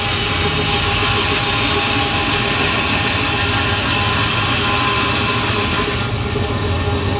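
Bandsaw running and cutting through a thick block of wood: a steady mechanical rumble and whine with the rasp of the blade in the wood, the higher cutting noise easing slightly about six seconds in.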